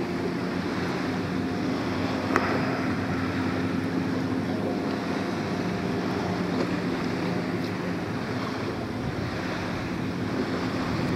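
Steady wind on the microphone and water lapping around a bass boat on open water, with a faint low steady hum underneath. One sharp click about two seconds in.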